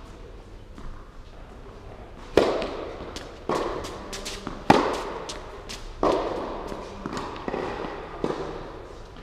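Tennis rally in an indoor hall: a few light ball bounces on the court, then a serve and sharp racket strikes and bounces about a second apart, each echoing around the hall. The loudest hit comes about halfway through.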